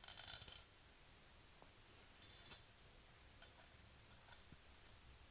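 Steel hex nut rattling and clinking against the threaded end of the pump shaft and the bronze impeller as it is fitted by hand: two short metallic rattles about two seconds apart, then a few faint ticks.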